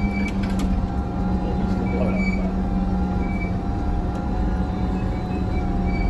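JCB Fastrac tractor engine running steadily under way, heard from inside the cab as a constant low drone with a steady hum.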